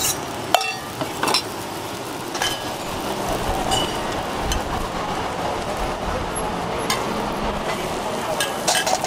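Banana-and-egg roti frying on a flat griddle with a steady sizzle, and a metal spatula clicking and scraping against the griddle now and then.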